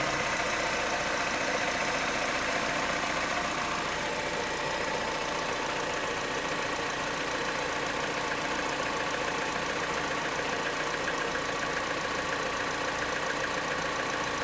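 Mini Cooper Clubman engine idling steadily.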